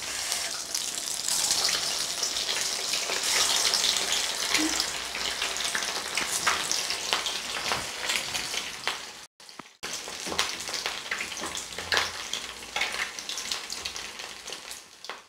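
Egg manchurian balls deep-frying in hot oil in a steel kadai, a steady sizzle full of fine crackles and pops. The sizzle is loudest in the first few seconds and drops out briefly about two-thirds of the way through.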